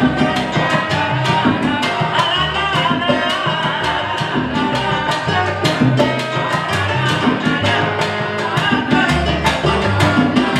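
Salsa band playing with a steady percussion beat and a bass line. The ensemble is piano, bass, congas, bongo, timbales, trumpet and trombone.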